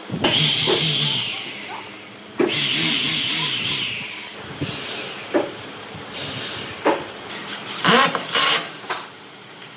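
A hand-held power tool working wood in two runs of about a second and a half each, its whine wavering as it cuts. Then several sharp knocks follow.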